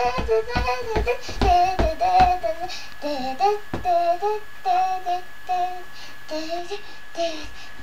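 Pop song with a high, childlike singing voice. A thumping beat runs for about the first two seconds, then the melody carries on in short stepped notes without it.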